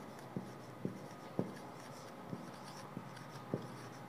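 Marker pen writing on a whiteboard: faint strokes with a handful of light, irregular taps as the tip meets the board.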